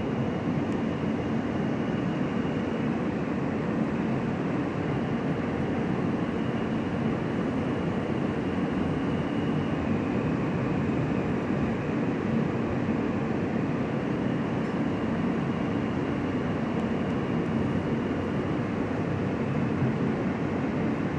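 Inside an R160 subway car running along the track: a steady rumble of wheels on rail and car noise, with a faint high tone that steps slightly lower about halfway through.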